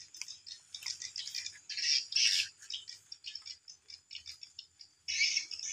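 Edible-nest swiftlets twittering: bursts of high, rattling chirps, loudest about two seconds in and again near the end, with quicker single chirps between.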